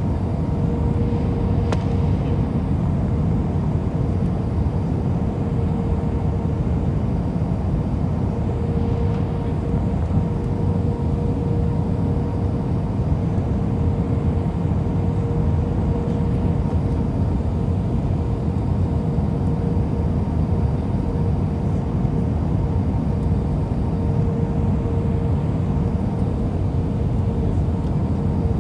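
Cabin noise inside an Airbus A319 airliner in flight, heard from a window seat: its CFM56 jet engines and the airflow make a steady low rumble, with a constant hum running through it.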